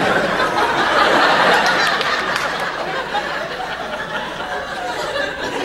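Large audience laughing, loudest over the first two seconds and then dying down.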